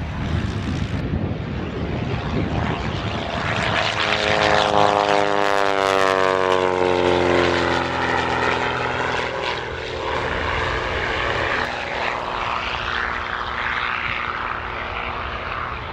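Pitts Special aerobatic biplane's piston engine and propeller in a display flight. The engine note grows to its loudest about five seconds in and falls steadily in pitch over the next few seconds, then wavers up and down as the plane manoeuvres.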